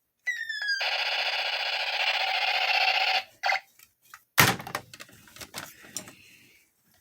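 Toy laser gun playing its electronic sound effects: a couple of short falling zaps, then a buzzing electronic rattle for about two and a half seconds. A loud knock follows, then a few small clicks as plastic is handled.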